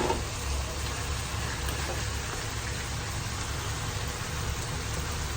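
Food sizzling steadily in a frying pan as boiled noodles are added to stir-fried mustard greens, with a short knock at the very start and a steady low hum underneath.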